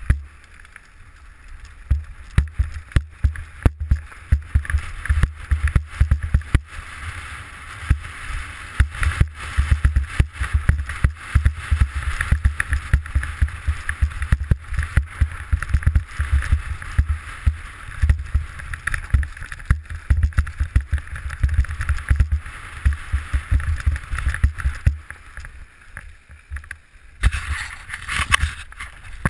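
Mountain bike descending a rough dirt and gravel trail, heard from a helmet-mounted camera: constant rattling knocks and thuds as the bike and rider are jolted, over a steady rush of tyre and wind noise. The hiss grows louder near the end.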